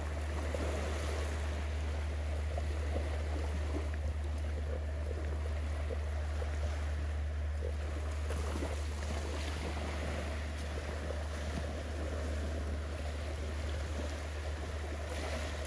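Beach ambience: wind on the microphone and gentle surf, over a steady low rumble.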